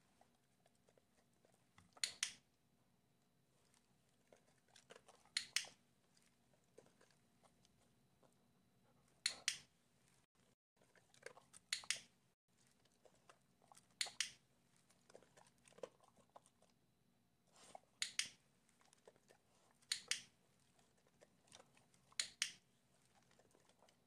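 Dog-training clicker giving about eight sharp double clicks, one every two to four seconds, each marking the dog's attempt at the doorbell button, with fainter small sounds in between.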